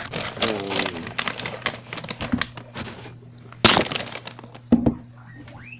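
Crackling, crunching handling noise with two sharp knocks, one about three and a half seconds in and one just under five seconds in, and a few faint short rising squeaks near the end.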